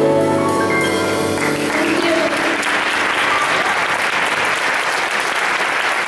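A jazz trio's final piano and double bass chord rings out and fades, and audience applause breaks out about a second and a half in and carries on steadily.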